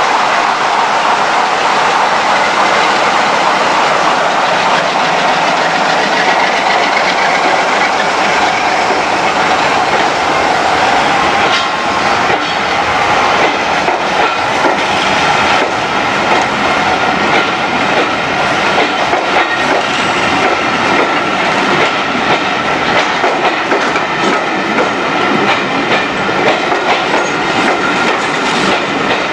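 Class 45 diesel locomotive D123 passing close by with its engine running as the rear cab goes past, then a train of coaches rolling by with a steady clickety-clack of wheels over the rail joints.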